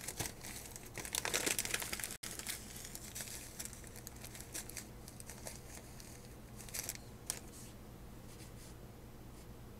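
Small plastic zip-lock baggies of diamond-painting drills crinkling and rustling as they are handled and sorted, busiest in the first few seconds, then sparser rustles.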